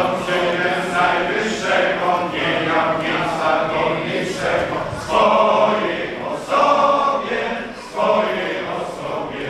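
Men's choir singing a Polish Christmas carol (kolęda) in sustained phrases, with loud new phrases starting about halfway through and twice more near the end.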